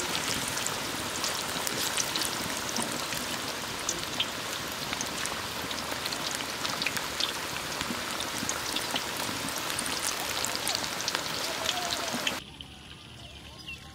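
Battered rabbit pakora pieces deep-frying in a large kadai of hot oil as more are dropped in by hand: a loud, steady sizzle thick with crackling and spitting. The sizzle cuts off suddenly near the end.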